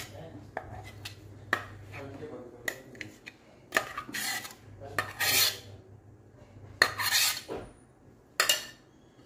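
Metal spoon scraping and clinking against a stainless-steel grinder jar and a mesh strainer as thick paste is scraped out: an irregular run of sharp clinks and short scrapes, a few of them longer.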